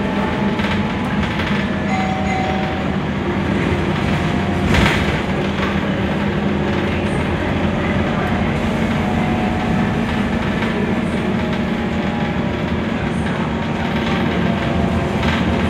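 Cabin noise inside a Scania articulated bus under way: a steady low engine drone over a continuous rumble and rattle from the body and road, with a single short knock about five seconds in.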